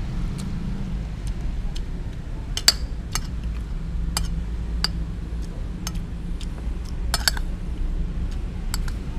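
Metal spoon clinking and scraping against a glass plate while scooping rice, in irregular sharp ticks about one a second, over a steady low hum.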